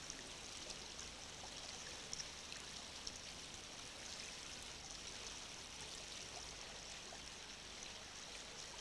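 Alcantara river flowing: a faint, steady rush of water.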